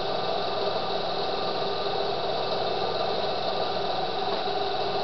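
Alternator rig running steadily to power an HHO electrolysis cell: an even mechanical hum and whine over a hiss.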